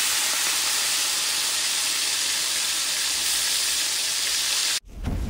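Loud steady hiss that cuts off abruptly near the end, followed by a brief low rumble.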